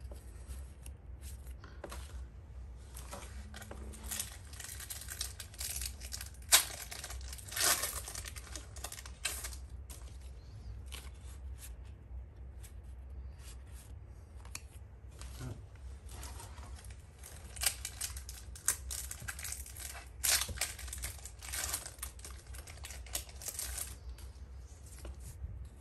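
Pokémon trading cards being flipped through by hand, card stock sliding and flicking against card in short irregular rustling bursts.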